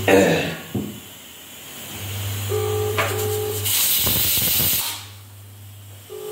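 Phone video call ringing out unanswered: a ringback tone of two short beeps, repeating about every three and a half seconds. A brief loud noise comes at the start, and a burst of hiss about four seconds in.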